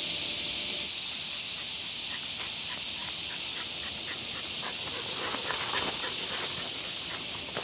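Steady high drone of a cicada chorus, with footsteps and rustling in dry leaf litter starting about two seconds in and growing busier near the middle.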